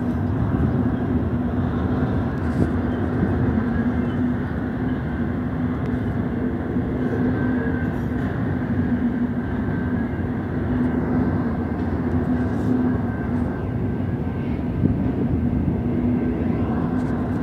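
Double-stack intermodal freight train rolling past: a steady rumble of wagon wheels on the rails, with a steady low hum running through it.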